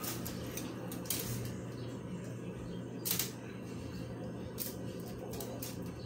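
Metal spoon spreading frosting on a cake, giving a handful of short clicks and taps, the strongest about three seconds in, over a steady low room hum.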